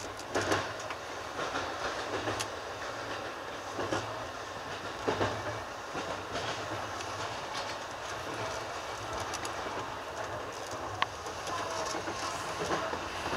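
Electric commuter train running at speed, heard from on board: a steady low running rumble and hum with irregular clicks and knocks as the wheels pass over rail joints and track.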